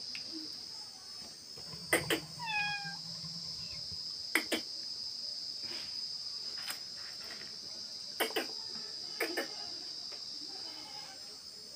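A kitten meows once, a short call falling slightly in pitch, about two and a half seconds in, over a steady high chirring of insects, with a few soft knocks.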